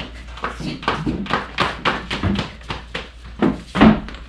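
Quick run of thuds and taps from hands striking the top panel of an IKEA KALLAX shelf unit, knocking it down onto its dowels, with a louder thump near the end.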